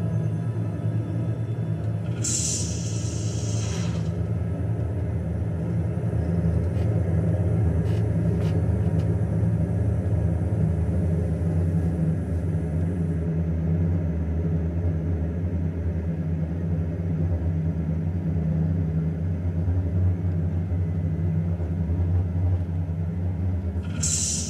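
Low, steady droning rumble from a video soundtrack played through computer speakers, with a brief hissing swell about two seconds in and another near the end.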